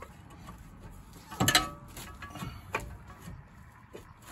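Metal knocks and clunks as the inner cup of a Gen 3 Montero's CV axle is pushed and worked into the differential housing against its new circlip. One loud knock comes about a second and a half in, followed by a few lighter ones.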